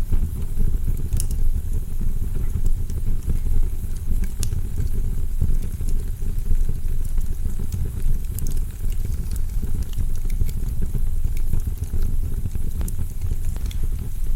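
Wood fire burning in a fireplace: a steady low rumble with scattered crackles and pops.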